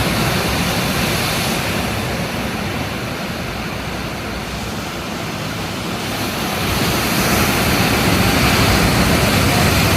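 Sea surf breaking on the shore: a steady wash that eases off for a few seconds, then swells again as the next wave comes in about seven seconds in.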